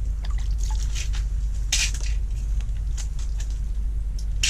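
A walleye is pulled up out of an ice-fishing hole with a splash of water, then gives several sharp wet slaps on the ice, the loudest a little under two seconds in and at the end. A steady low hum runs underneath.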